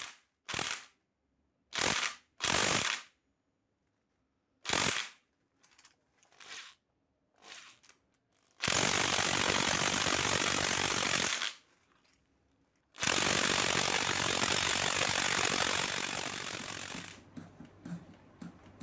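Handheld cordless power tool spinning the cylinder head bolts loose on a Honda CBR250R engine. It runs in a few short bursts, then in two long runs of about three and four seconds.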